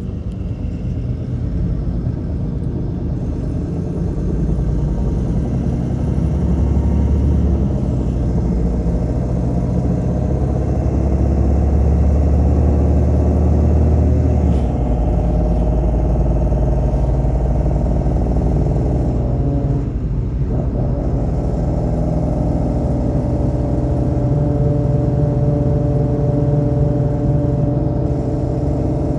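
MAN Lion's City LE city bus engine running under way, heard from inside the bus as it drives, with its ZF Ecolife automatic gearbox. The engine note changes about halfway through and again briefly a few seconds later, then rises steadily as the bus gathers speed.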